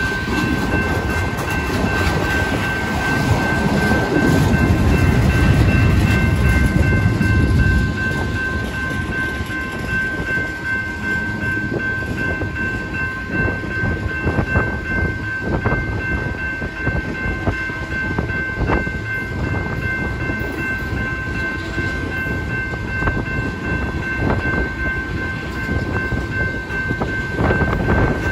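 Freight train of tank cars rolling past at a grade crossing: a steady rumble of wheels on rail with irregular clicks over the rail joints, louder during the first eight seconds. A steady high-pitched ringing tone runs over it throughout.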